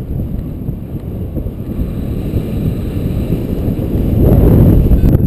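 Wind noise on the microphone of a paraglider in flight: a steady, low rush of air that grows louder about four seconds in.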